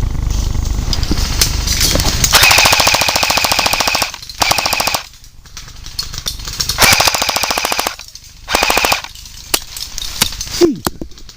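Airsoft rifle firing on full auto in four bursts of rapid, evenly spaced shots: a long one of nearly two seconds about two seconds in, then three shorter ones. A few scattered single clicks follow near the end.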